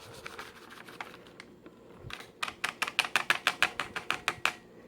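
Muffin-mix packet being emptied into a mixing bowl: a fast run of light taps, about nine a second, starting about halfway in.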